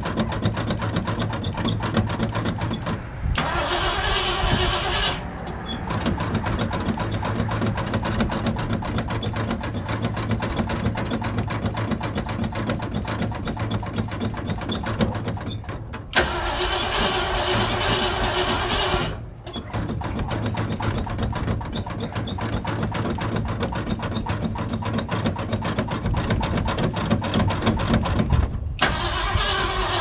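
Old Ford Bronco engine cranking on the starter in long stretches, hard starting from cold. The cranking breaks off and starts again several times.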